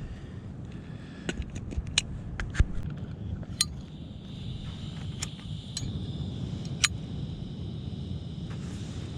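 Low, steady wind rumble on the microphone, with a scatter of sharp clicks and taps over the first seven seconds and a steady hiss in the middle.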